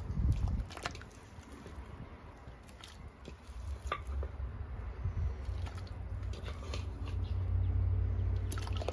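Pieces of pork going into a large pot of hot water, making a few small wet splashes and clicks over a steady low rumble.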